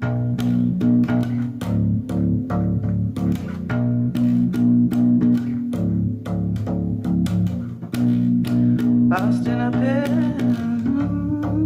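Rock song intro: a bass guitar riff of steady low notes over a beat of sharp, regular hits. About nine seconds in, a wordless vocal line comes in over the riff.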